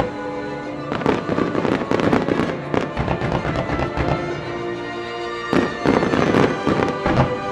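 Fireworks display with music playing along: flurries of aerial shell bursts about a second in and again from about five and a half seconds, over the steady tones of the accompanying music.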